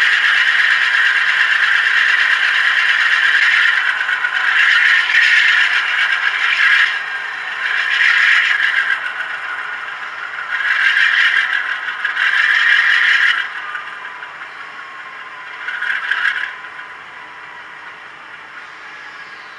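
Scraping and rattling from an HO-scale model freight train pulled by a Korea Brass U25C as it slows to a stop. The noise comes in repeated loud swells, falls away after about 13 seconds, and gives one last short burst near 16 seconds.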